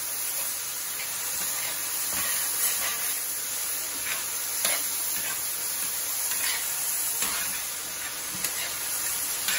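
Sliced mushrooms frying in a hot cast-iron skillet with butter and steak drippings: a steady sizzle with occasional light taps.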